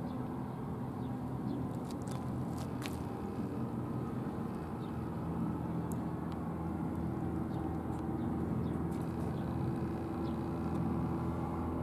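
Engine running steadily, a low even drone with no change in pitch. A few faint clicks about two to three seconds in.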